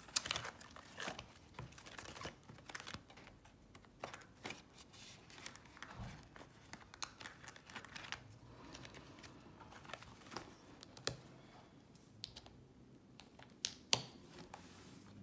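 Prop paper banknotes and envelopes being handled while stuffing cash into budget envelopes: irregular paper rustling and crinkling with light taps and clicks, and a sharper click near the end.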